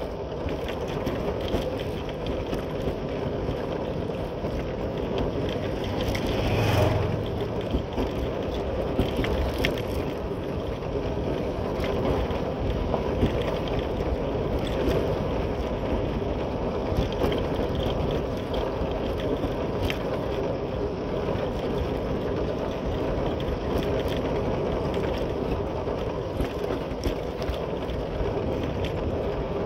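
Motorcycle engine running with tyre and wind noise while riding, heard from the rider's seat, with a brief louder rush about seven seconds in.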